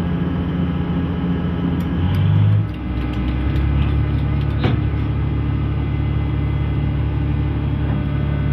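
Tugboat diesel engine running with a steady low drone; about three seconds in the drone briefly swells, then settles into a deeper, even hum, with a single sharp click near the middle.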